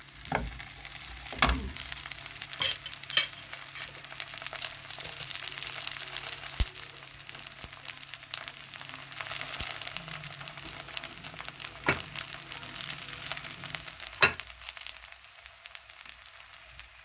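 Puff pastry squares frying in a little oil in a pan: a steady crackling sizzle, with a few sharper clicks along the way.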